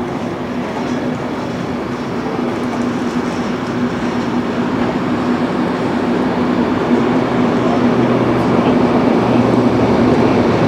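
Railway passenger car noise: a steady rushing sound with a constant low hum, growing slowly louder, with a second lower hum joining near the end.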